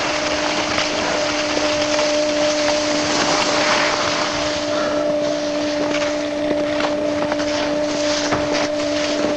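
Wind rushing over the microphone and skis scraping over snow during a downhill run, a loud steady rush, with a steady hum underneath and a few scrapes and clicks in the second half.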